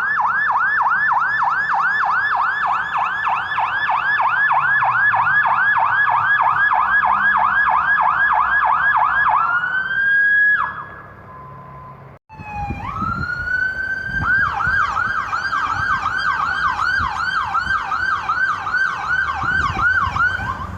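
Emergency vehicle siren sounding a fast yelp, about three to four rising-and-falling sweeps a second. About ten seconds in it holds a high tone and winds down; after a brief break a siren winds up again and returns to the yelp, with a low traffic rumble beneath.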